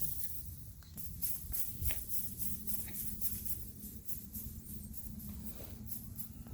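Emu feathers rustling in a quick run of short rustles, over a steady low rumble.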